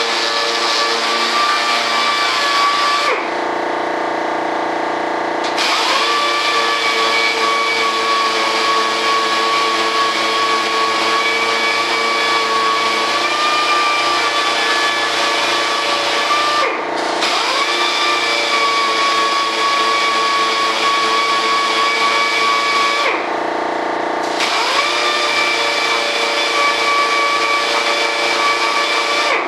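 A power tool's motor running steadily at a high whine with a rushing hiss. Three times it eases off, the pitch sagging and the hiss dropping away, then it spins back up.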